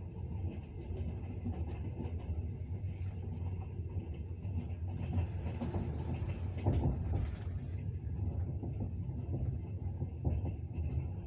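Train running on the rails: a steady low rumble of wheels on track with occasional knocks, and a hissing stretch from about five to eight seconds in.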